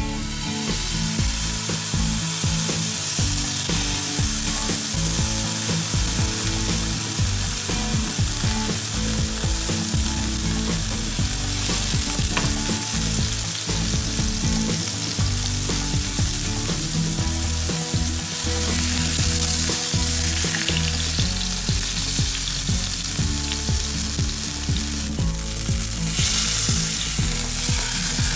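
A block of beef searing in hot oil in a nonstick frying pan on medium heat: a loud, steady frying sizzle that starts as the meat is laid in and grows stronger near the end.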